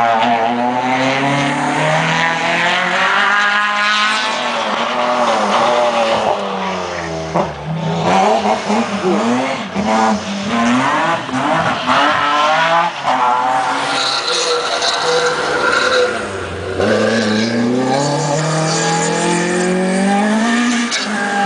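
Rally cars driving past one after another at racing speed. Their engines rev up hard and drop back again and again as they change gear.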